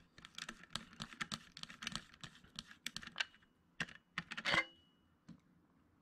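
Centrepin reel being handled: a run of small, irregular clicks from the metal spool and frame, then a louder clatter with a brief metallic ring about four and a half seconds in as the spool is lifted off its spindle.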